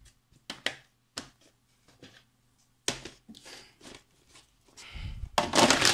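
Plastic DVD cases and a disc being handled: a few sharp clicks and knocks in the first half, then a louder, longer scraping clatter near the end as the cases are moved and stacked.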